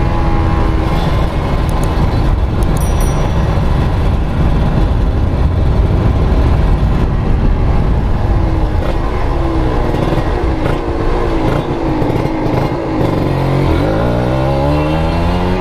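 Kawasaki Ninja RR's 150 cc two-stroke single, fitted with a Mikuni VM28 carburettor, running loud. In the second half it is revved several times, its pitch rising and falling.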